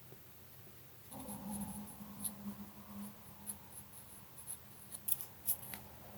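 Faint scratching and soft ticks of a paintbrush working shade along the edge of a small paper model sail, over a low steady hum that starts about a second in.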